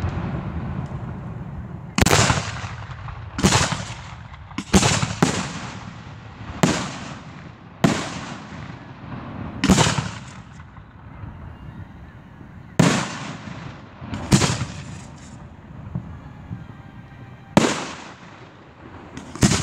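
Aerial fireworks going off during a display: about a dozen loud bangs at uneven intervals, one to three seconds apart, each trailing off in a rumbling echo.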